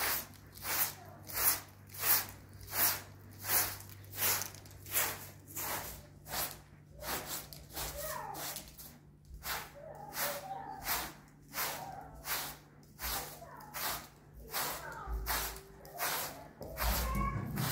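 Short hand broom sweeping a pile rug in brisk, even strokes, a swish about one and a half times a second.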